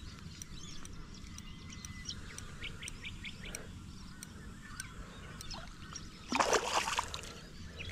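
Faint birds calling across the river. About six seconds in, a short splash as a small bass on a line thrashes at the water's surface beside a paddleboard.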